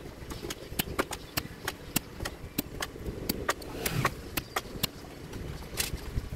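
A run of sharp, uneven clicks, about three a second, over a low steady rumble.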